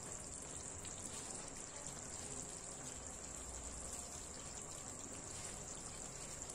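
Faint, steady simmering of an egg and potato curry in a kadhai over a low gas flame, with no distinct bubbles or knocks.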